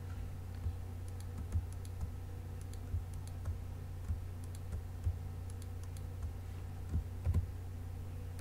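Computer keyboard keys and mouse buttons clicking irregularly during shortcut-driven 3D modelling work, with a quick cluster of clicks near the end. A steady low hum runs underneath.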